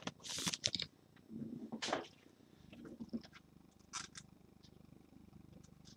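Trading cards being handled: a few short rustles and slides of card stock, the loudest in the first two seconds, then one more brief rustle about four seconds in before it goes faint.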